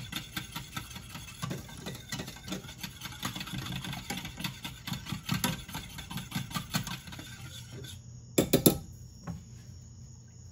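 A wire whisk clicking and rattling quickly against a stainless-steel saucepan as pastry cream is whisked over the heat, kept moving so it doesn't stick. About eight seconds in the whisking stops with a brief louder clatter, followed by quieter stirring.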